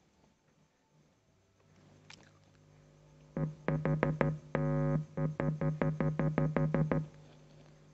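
Amplifier's speaker giving a faint low hum, then a rapid stuttering run of short buzzes, about four or five a second, with one longer buzz in the middle, cutting off near the end.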